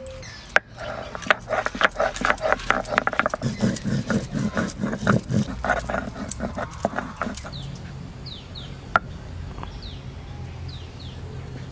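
Stone roller crushing dried red chillies on a flat grinding stone (sil-batta): a quick run of crunching knocks and scrapes for the first seven seconds or so, then quieter grinding. Small birds chirp in the background in the later part.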